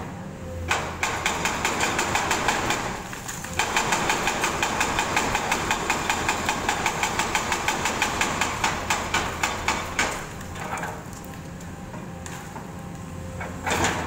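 Excavator-mounted hydraulic breaker hammering concrete in rapid even blows, about five a second, in two runs with a brief pause about three and a half seconds in, over the steady running of the excavator's diesel engine. The hammering stops about ten seconds in, leaving the engine running, and there is a single loud knock near the end.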